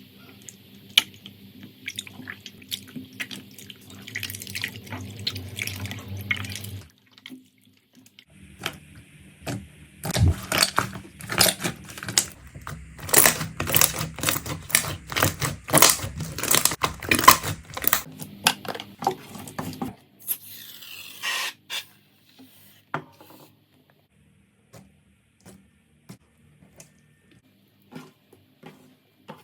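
Slime being squeezed and pressed by hand, making wet, sticky clicks and pops. They are sparse at first, then come thick and loud for about ten seconds in the middle, and thin out again near the end.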